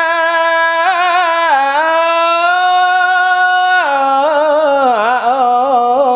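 Khmer smot chanting by a male Buddhist monk: a single unaccompanied voice holding long melismatic notes with quick wavering ornaments. The pitch steps down about a second and a half in and again near four seconds.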